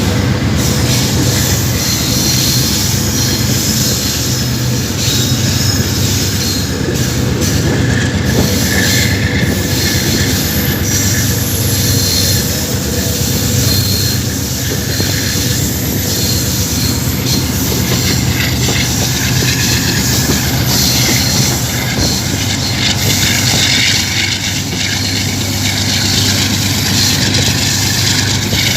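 Passenger train running at speed, hauled by a GEU-20 diesel-electric locomotive: steady loud rolling noise of the wheels on the rails with a low hum underneath.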